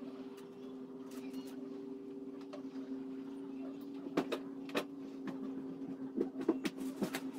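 A steady machine hum made of two even tones, with scattered sharp clicks and knocks, several close together near the end; the hum stops abruptly at the very end.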